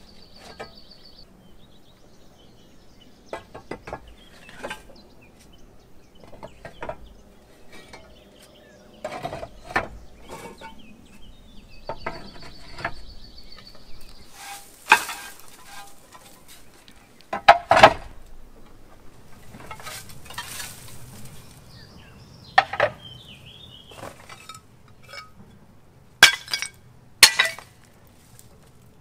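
Curved terracotta roof tiles clinking and knocking against each other as they are lifted and stacked, with irregular sharp clacks and a couple of stretches of scraping over the old tiles and debris. The loudest clacks come in clusters about two-thirds of the way in and near the end.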